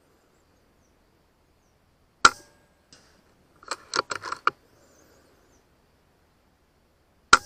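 FX M4 PCP air rifle firing: a sharp crack about two seconds in and another near the end. Between them comes a quick run of mechanical clicks as the action is cycled for the next pellet.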